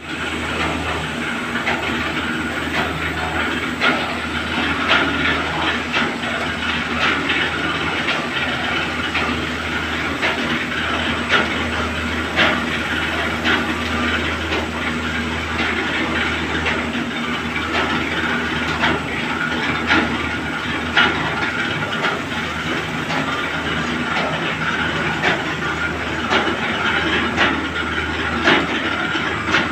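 Buffet plate sheet making machine running: a steady mechanical whir with a low hum underneath and frequent irregular clicks and clacks, as the paper web is drawn over chain-driven rollers.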